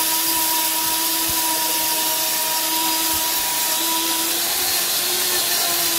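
Stainless-steel high-speed dry grinder (swing-type flour and spice mill, rated 1500 W and 36,000 rpm) running flat out on a timed grind: a steady, loud high whine over the rush of the contents being milled, while the hopper is rocked on its stand.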